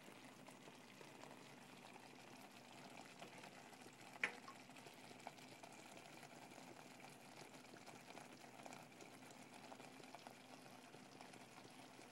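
Faint, steady bubbling of food cooking on a stovetop: angel hair pasta boiling in water, then chicken wings simmering in red sauce, with small crackles. A single sharp click about four seconds in.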